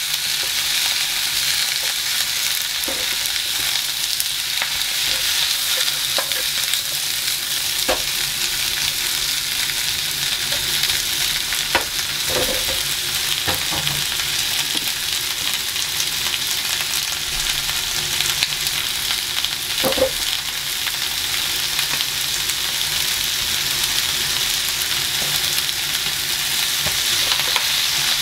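Mixed vegetables (cauliflower, carrot, leafy greens and green beans) sizzling steadily in a nonstick frying pan, a constant high hiss. A few light knocks of a wooden spatula against the pan come now and then.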